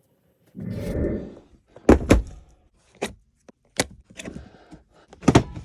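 A short rustling noise, then a series of sharp knocks and clacks, about five spread over a few seconds: objects being handled and set down.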